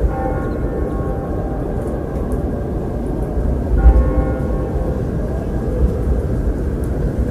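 Church bell tolling, struck twice about four seconds apart, each stroke ringing on and fading, over a steady low rush of wind.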